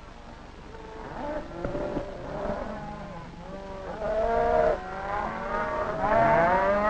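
Livestock herd calling: several overlapping bleats and moos, loudest about four seconds in and again near the end.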